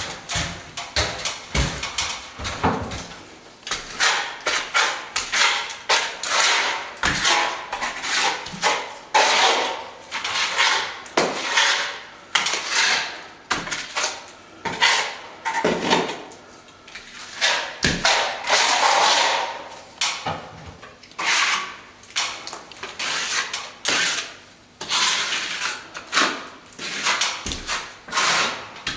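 A plastering trowel scraping and spreading stopping plaster mixed with lime over a plaster wall in short repeated strokes, with a few sharp knocks of the tool.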